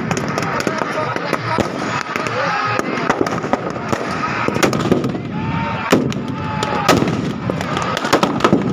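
Firecrackers packed inside a burning Ravan effigy going off in a rapid, irregular string of sharp bangs and cracks over the noise of the blaze.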